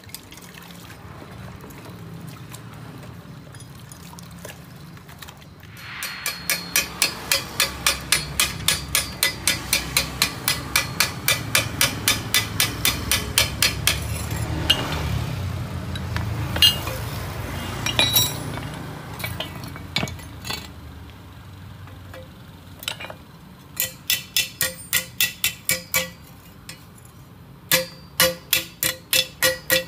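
Small hammer tapping a steel motorcycle exhaust header pipe in a quick, even run of about four blows a second, each blow ringing. The tapping breaks off for a while in the middle, then comes back in shorter runs near the end.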